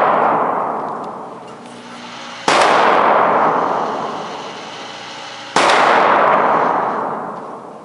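Two shots from a TriStar Viper semi-automatic 28-gauge shotgun, about three seconds apart. Each is a sudden crack followed by a long echoing fade in the indoor range. At the start, the tail of an earlier shot is still dying away.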